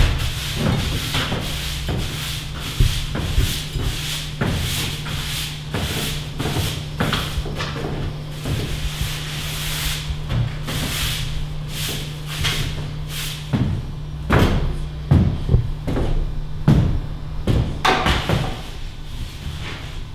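Straw broom sweeping across a stage floor in repeated scratchy strokes, over a steady low hum.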